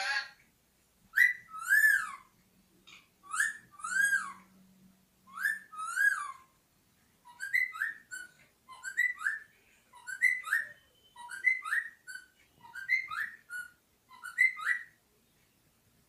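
Pet Indian parrot whistling a repeated phrase: three longer rising-and-falling whistles, then six shorter, quicker ones, each under a second with brief pauses between.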